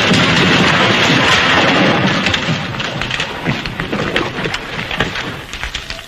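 Brick wall bursting apart: a loud crashing rumble that dies away about two seconds in, then scattered clattering of falling bricks and debris, fading toward the end.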